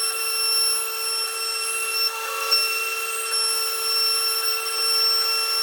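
CNC machine running with a steady, high-pitched whine made of several held tones; the highest tones briefly cut out about two seconds in.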